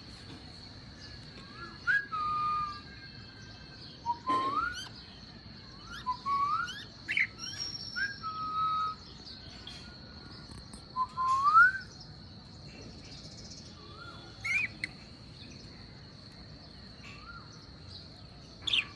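Lovebirds chirping and calling: short chirps and rising whistled notes come in clusters separated by pauses of a few seconds, over a steady high-pitched tone.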